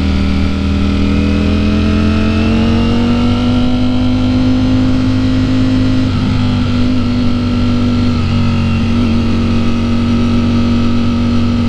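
Ducati Streetfighter V4 S's V4 engine under way through a full titanium Akrapovic exhaust. Its pitch climbs smoothly over the first few seconds as the bike pulls, then holds nearly steady.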